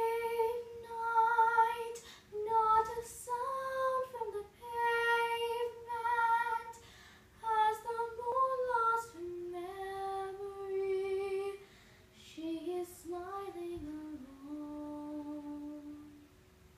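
A woman singing solo in long held notes, the melody sitting higher for the first half and dropping lower for the second half, ending about a second before the end.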